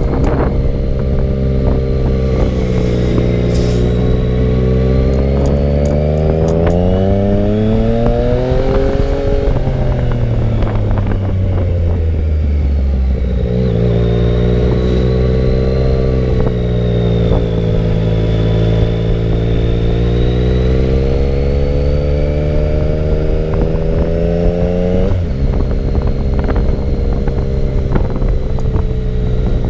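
Sport motorcycle engine running under way. Its pitch climbs steadily as it accelerates, eases back down, then climbs again, drops abruptly near the end and holds steady.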